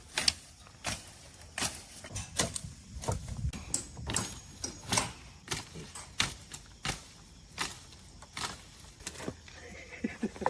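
A chopping knife hacking at weeds and branches: a string of sharp, uneven strikes, roughly one a second.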